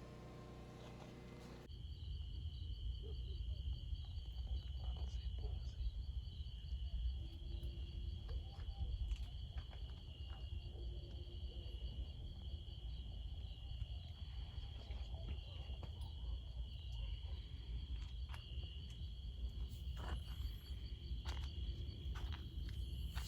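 Insects, such as crickets, chirring in a steady high chorus that begins abruptly about two seconds in, over a low rumble and scattered small knocks.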